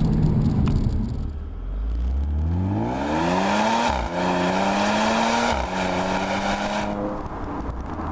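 Audi S4 B8's supercharged 3.0-litre V6 exhaust under hard acceleration. The engine note climbs, drops sharply at two upshifts about four and five and a half seconds in, then holds a steady pitch.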